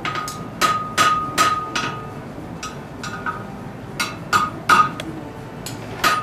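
Blacksmith's hammer striking steel on an anvil, a dozen or so sharp blows in short runs of about two to three a second with brief pauses, several leaving a bright metallic ring.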